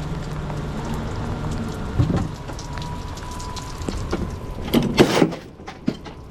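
Heavy rain falling steadily, with a steady low hum beneath it. There is a knock about two seconds in and a louder thump near five seconds, after which the rain drops away.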